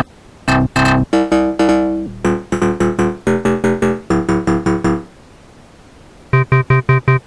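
Synth keyboard samples from a Vina House sample pack played back: short chord stabs in a loose rhythm, then about a second of silence, then a fast repeating plucked synth loop starts.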